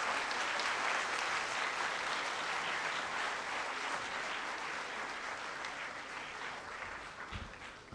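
School assembly audience clapping after a speaker's closing "thank you", the applause slowly dying away.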